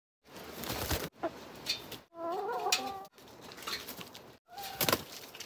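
Chickens clucking, heard in several short bits about a second long that cut off abruptly one after another, with a wavering call near the middle and a few sharp taps.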